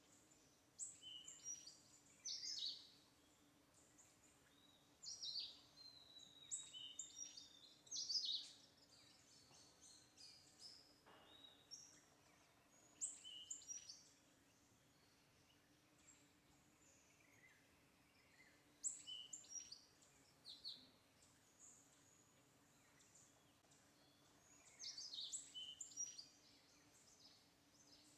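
Small birds chirping in short bursts of quick, high, falling notes, five or six times, over a faint steady hum.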